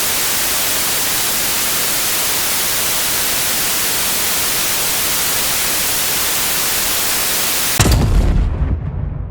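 Steady loud static hiss, then about eight seconds in a sudden deep explosion boom breaks in and dies away, the sound effect of a missile strike.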